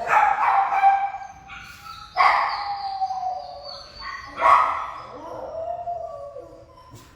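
Shelter dogs in kennels barking and howling, with three loud outbursts about two seconds apart, each trailing off, and weaker calls between them.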